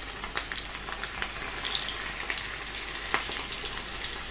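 Breadcrumb-coated prawns deep-frying in hot oil: a steady sizzle with scattered pops and crackles.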